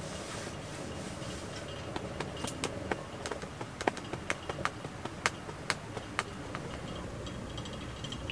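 Fire in a small camping stove crackling, with irregular sharp pops bunched in the middle, over a low steady background hum.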